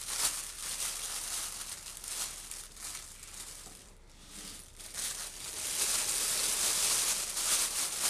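Clear plastic roasting sleeve crinkling and rustling as it is handled and opened out, with a short lull about halfway and steadier crinkling over the last few seconds.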